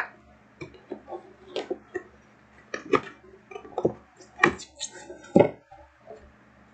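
Cardboard tablet packaging being handled: a string of irregular knocks, taps and scrapes as the boxes are moved and turned over, the loudest knocks near the end.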